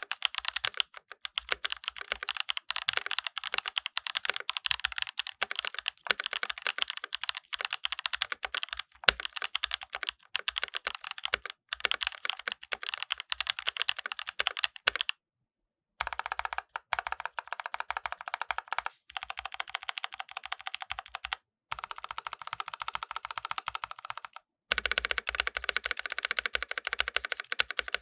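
Zion Studios Zen67 mechanical keyboard being typed on in rapid, continuous keystrokes. The typing is cut into several takes with sudden short silences, about halfway through and twice more later, and the clack sounds a little different from take to take.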